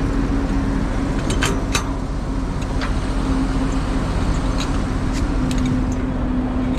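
Semi truck's diesel engine running steadily with a constant low hum, with a few light clicks and ticks scattered through it.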